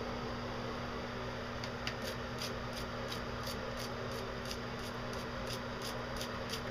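Steady room hum, joined about two seconds in by a regular run of short, sharp ticks, about three or four a second, as whitening shampoo is squirted from a nozzled applicator bottle into a wet dog coat.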